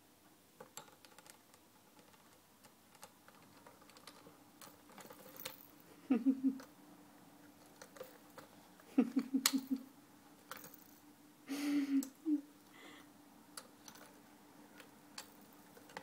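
Plastic carnival bird toy being beaked and bitten by a green-cheeked conure: irregular light plastic clicks and taps, with three louder rattling bursts about six, nine and twelve seconds in.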